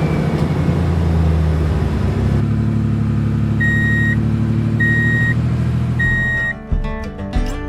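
Truck engine running steadily, with a reversing alarm beeping three times about a second apart. Music starts near the end.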